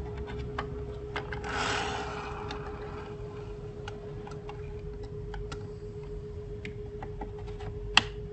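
Scattered light plastic clicks from a toy steering-wheel dashboard being handled, with a sharper, louder click near the end. A steady faint humming tone runs underneath.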